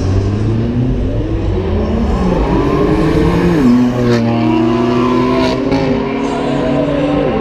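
BMW M4's twin-turbo straight-six accelerating hard from a launch, its note climbing and then dropping at a quick upshift about three and a half seconds in. It climbs again with two sharp cracks along the way, and shifts once more near the end.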